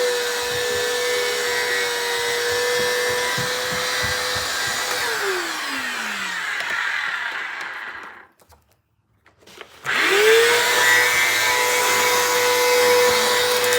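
Bissell CleanView upright vacuum running steadily, then switched off about five seconds in, its motor winding down in pitch to a stop. After a second or two of silence it is switched back on, the motor spinning up quickly to full speed and running steadily again.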